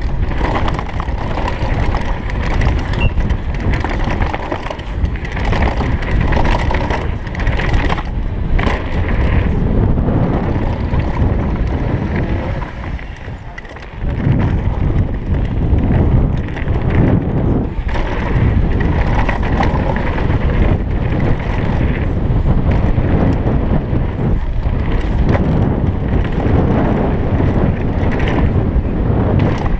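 GT Fury downhill mountain bike ridden fast down a dirt and gravel track, heard from a camera on the rider: a steady rumble of tyres over dirt and stones, with wind on the microphone. Near the middle the noise falls away for about a second and a half, then returns suddenly.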